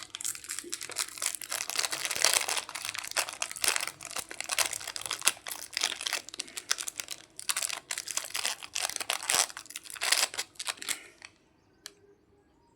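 Plastic candy packaging being crinkled and handled, in dense crackling runs with a short break about halfway through, stopping about eleven seconds in. A single sharp click near the end.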